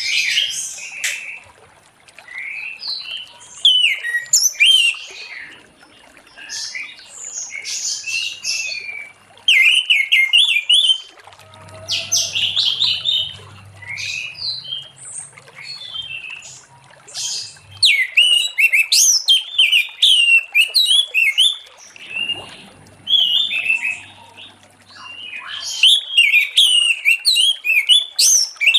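Orange-headed thrush in full song: a long run of quick, varied whistled phrases with chattering notes, broken by brief pauses.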